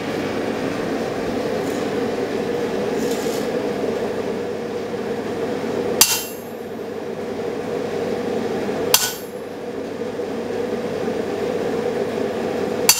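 Three single hammer blows on a handled fullering tool held on a red-hot steel sword blade over the anvil, hand-fullering the groove, each a sharp metallic strike with a short ring, about three seconds apart. A steady roar from the gas forge runs underneath.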